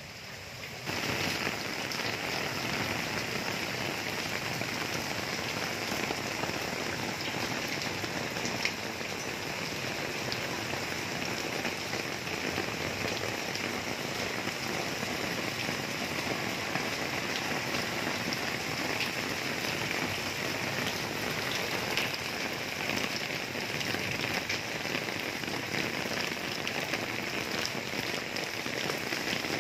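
Heavy rain pouring steadily, splashing into pooled water and drumming on an umbrella held overhead.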